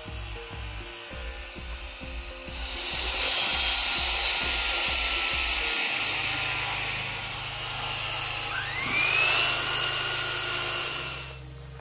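Handheld worm-drive circular saw cutting through a thick wooden beam, then a saw motor whining up in pitch and cutting again near the end, over background music with a steady beat.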